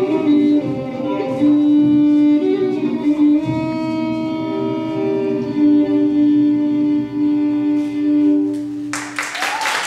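Instrumental music of plucked and bowed strings, closing on long held notes. Audience applause breaks out suddenly about nine seconds in, as the music ends.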